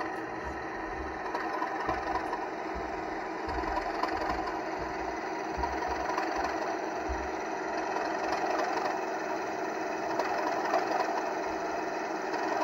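Model Class 37 diesel locomotive moving slowly, with a steady diesel engine sound and a mechanical whirr from the model running on the track. Irregular low thumps come through underneath.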